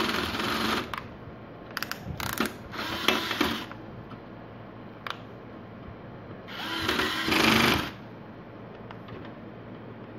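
Electric screwdriver driving screws into the TV's power supply board and metal chassis, whirring in short runs of about a second, four times.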